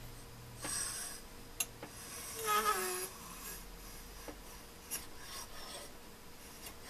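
Carbide-tipped height-gauge scriber scratching a line along a marker-blackened copper tube, with the gauge base sliding on the surface table: a few short scratchy strokes, one near the middle with a squeak that falls in pitch, and some light clicks.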